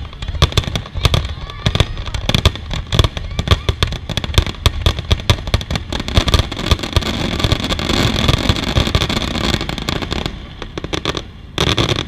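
Aerial fireworks display: a dense salvo of shell bursts, sharp bangs coming several a second, which run together into a steady rush for a few seconds. The barrage thins out about ten seconds in, and one last loud burst comes near the end.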